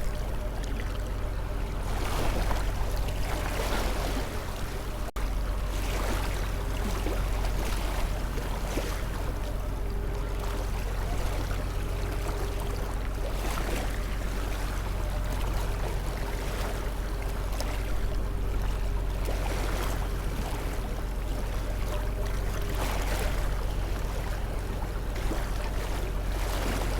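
Steady white-noise ambience: a low steady hum under a rushing hiss that swells and washes like moving water every second or two. There is a brief dip and a click about five seconds in.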